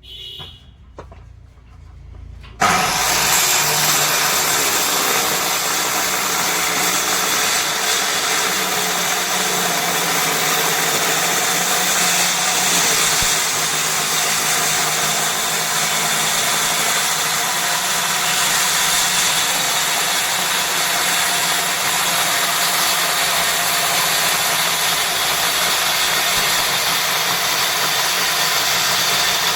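A few faint knocks, then a motor-driven machine starts abruptly about two and a half seconds in and runs steadily, with a loud hiss and a steady hum.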